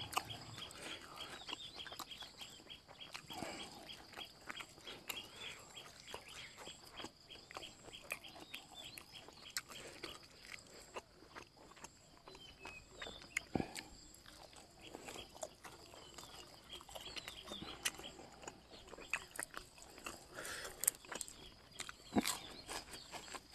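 Quiet chewing of a mouthful of fish laab and sticky rice eaten by hand, with many small mouth clicks.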